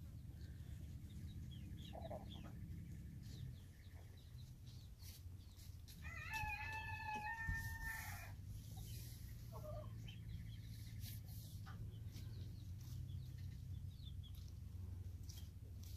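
Chickens calling: a short cluck about two seconds in and another about nine seconds in, and about six seconds in one long held call lasting about two seconds, over a low steady hum.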